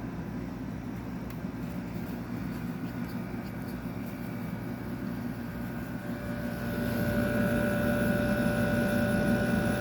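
A 2002 Whirlpool Gold 6,500 BTU window air conditioner running with a steady hum. About seven seconds in it grows louder, and a steady whine sets in on top of the hum.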